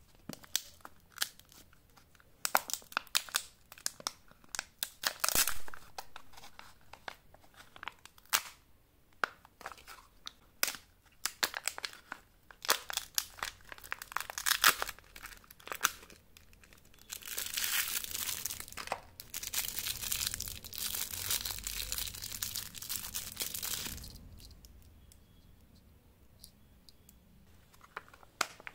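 Plastic packaging of a Wonder Ball candy egg being opened by hand: sharp clicks and crackles of the plastic shell and wrapper, then about seven seconds of continuous tearing and crinkling of the wrapper about two-thirds of the way in. Near the end come a few snips at the foil-sealed chocolate cup.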